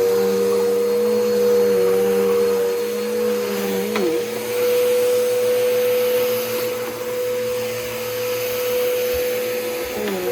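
Bissell Powerforce Bagless Turbo upright vacuum cleaner running while vacuuming, with a steady motor whine and a lower hum that wavers as it is pushed. There is a brief click and a dip in pitch about four seconds in.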